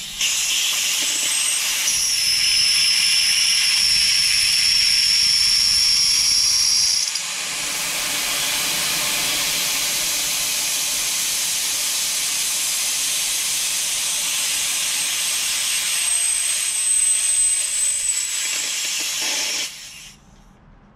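Air rushing out of a large off-road tire through an opened Monster Valve secondary valve stem as the tire is aired down from 27 to 13 psi. It is a loud, steady hiss with a high whistle over it for the first several seconds, easing slightly about seven seconds in, then cutting off near the end.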